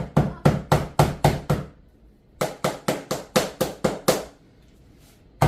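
Rapid knocking as click-lock flooring planks are tapped tight together to close the seams, about four blows a second in two runs with a short pause between.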